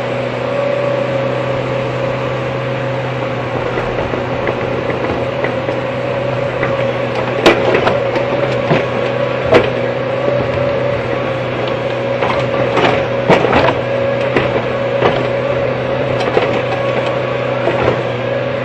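Hydraulic excavator's diesel engine and hydraulic pump running steadily with a constant hum and whine. Sharp clanks and knocks come from about seven seconds in as the bucket digs into the dam's earth and rock.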